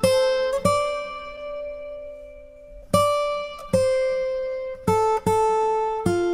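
Music: acoustic guitar playing single plucked notes, each ringing out and fading. The notes come unevenly, with one left to ring for about two seconds in the first half and quicker notes after it.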